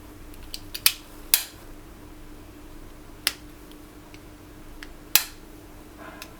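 Sharp clicks and snaps of small hard objects being handled, about eight in all, the loudest about a second in and just after five seconds in, over a faint steady hum.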